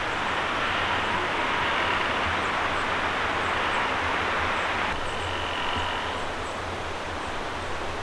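Wind rushing through tall conifers, with a tree creaking loudly in long, drawn-out squeaks; a clear high creak comes about five seconds in and lasts about a second.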